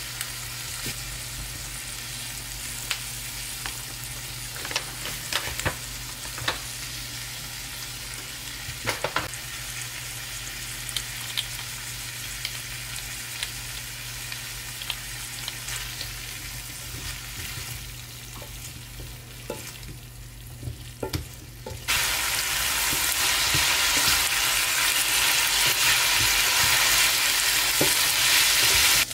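Pork and onion sizzling in a frying pan, with scattered taps and scrapes of a silicone spatula as it is stirred. About three-quarters of the way through, the sizzle jumps suddenly much louder and brighter and stays that way.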